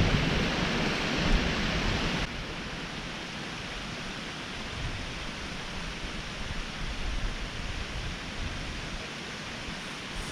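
Steady rush of creek water spilling through a beaver dam, dropping to a quieter level about two seconds in.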